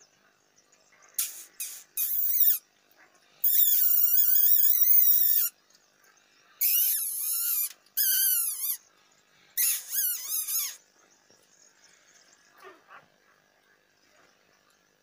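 Newborn puppies crying in a series of high-pitched, wavering whines, the longest about two seconds, some falling in pitch at the end. The cries stop for the last few seconds.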